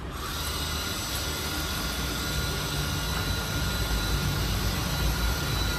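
Makita DHW180 cordless pressure washer starting up and running: a steady whine over an even hiss, growing slowly louder.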